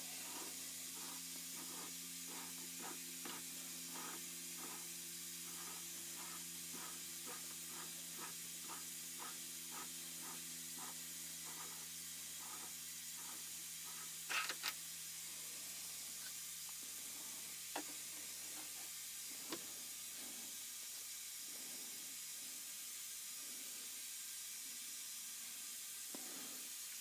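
Low machine hum with a faint regular ticking, about two ticks a second, that fades away over the first twenty seconds, as if the Atlas lathe is winding down. A few sharp metal clicks about halfway through as the collet is handled at the spindle.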